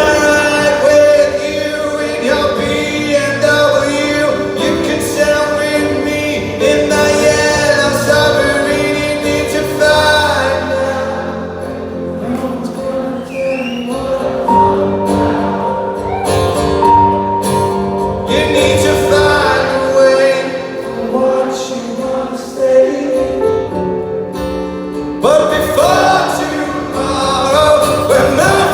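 Live band playing a song in an acoustic arrangement, with singing over the instruments.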